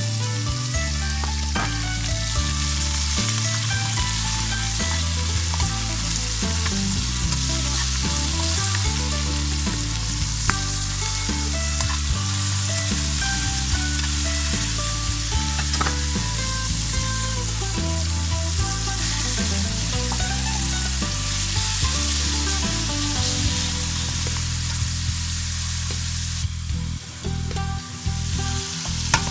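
Minced meat with garlic and chili sizzling in hot oil in a nonstick pan, stirred and pushed around with a plastic spatula. The sizzle thins briefly near the end, then picks up again.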